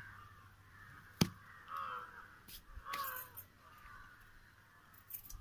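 Crows cawing repeatedly, with a sharp knock about a second in.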